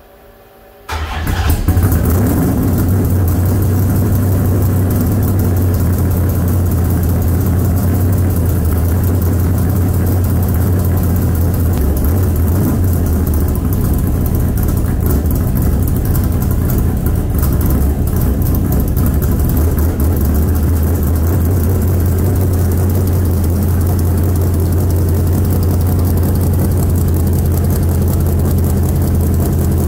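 A 1971 Dodge Dart's 451 stroker big-block V8 starts about a second in and settles into a steady idle through its 3.5-inch exhaust with bullet mufflers. The owner thinks a header gasket is leaking a little exhaust.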